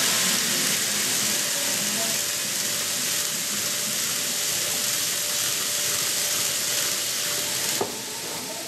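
N-gauge model trains running on a layout: a steady hiss of small wheels rolling on the track with a faint thin motor whine. The sound drops abruptly near the end.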